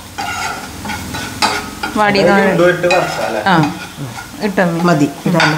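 A steel spoon stirring and scraping onion-and-spice masala in a frying pan, with the masala sizzling as it fries.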